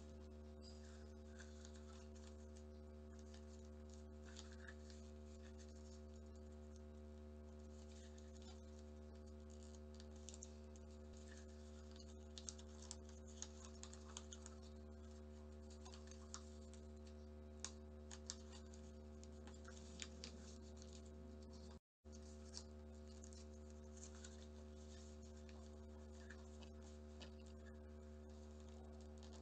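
Faint crisp clicks and light scratching of origami paper being folded and creased by hand, most of them in the middle, over a steady low electrical hum.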